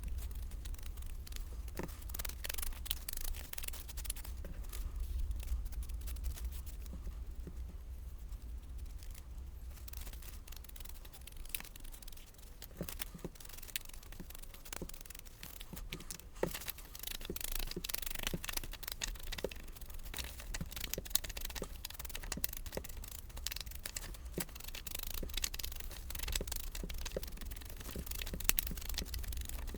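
Hands-on papercraft: scratchy scrubbing and rustling of cardstock being handled and its edges inked, with scattered light taps and clicks, over a low steady hum.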